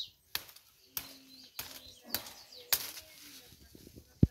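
Plastic bag and leafy branches rustling and crackling in short sharp bursts, about one every half second, as a bagged soursop is pulled from the tree and handled; the loudest crackle comes near the end.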